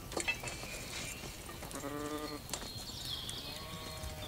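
A farm animal bleating once: a single drawn-out call about two seconds in, with a couple of faint knocks around it.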